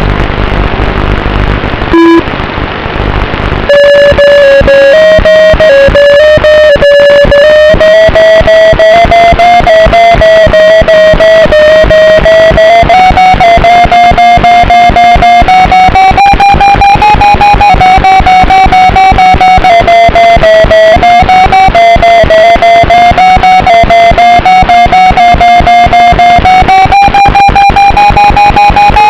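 FPV quadcopter motors whining loudly and distorted, their pitch wandering slowly up and down with the throttle, after about four seconds of rougher noise at the start.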